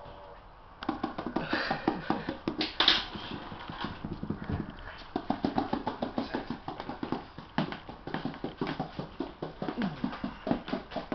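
Miniature schnauzer puppies' claws pattering and scrabbling rapidly on a wooden floor as they scamper and play, starting about a second in, with a few short puppy yaps near the end.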